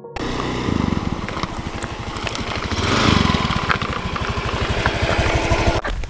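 Motorbike engine running under way, with a fast, even low pulse and rushing road and wind noise. It swells a little midway and cuts off suddenly near the end.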